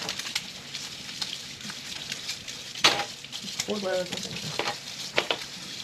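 Kitchen faucet running steadily while plates are washed by hand at the sink, with a few sharp clinks of dishes, the loudest about three seconds in.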